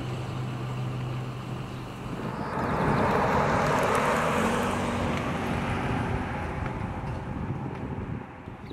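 Pickup truck driving past: a low steady hum at first, then engine and tyre noise swelling to a peak about three to four seconds in and fading away.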